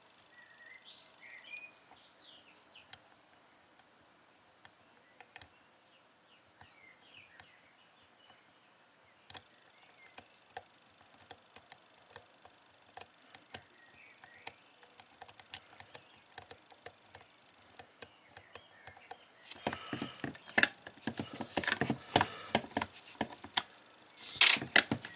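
Small metallic clicks of a four-dial combination lock being worked with a pick, with a few faint bird chirps early on. About three quarters of the way in the clicking turns into a denser, louder rattle of the dials and shackle, loudest near the end as the lock is decoded.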